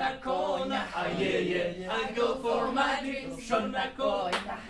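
A large group of teenage voices singing together as a choir, holding notes and moving between them.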